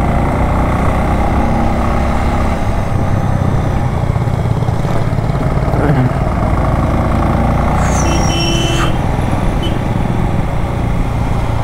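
Bajaj Avenger Cruise 220's single-cylinder engine running steadily as the motorcycle rides along at moderate speed. A brief high-pitched tone cuts in about eight seconds in.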